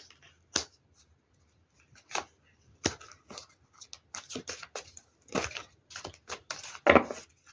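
Tarot cards being handled: a string of short snaps and rustles as cards are shuffled and drawn, sparse at first and busier in the second half.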